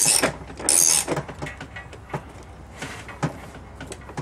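Ratchet wrench clicking in two quick runs in the first second as it turns the nut of a bearing puller drawing the rear tub bearing out of a Maytag Neptune front-load washer. A few single metallic clicks and knocks follow.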